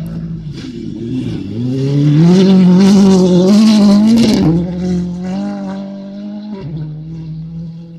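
Rally car's engine revving hard as the car comes up and passes on a loose dirt stage: the note rises and is loudest from about two to four and a half seconds in, then holds steadier and fades as the car drives away.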